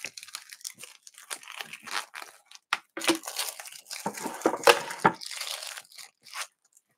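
Thin plastic wrapping crinkling and tearing as it is peeled off a wooden jigsaw puzzle board, in irregular crackles that are thickest in the middle.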